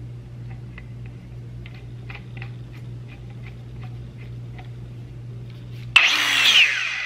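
Light clicks from a Milwaukee M18 cordless angle grinder being handled as its wheel guard is turned, over a steady low hum. About six seconds in, a sudden loud noisy sound with a falling pitch starts and lasts over a second.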